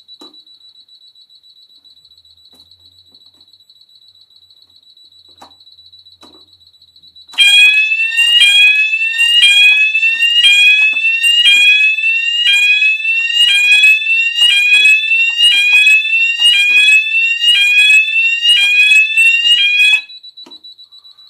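Fire alarm control panel's buzzer beeping rapidly in supervisor mode, then about seven seconds in the smoke alarm sounders go off loudly: a falling sweep repeated about once a second for some thirteen seconds as the reset runs its test. They cut off and the panel's rapid beeping resumes.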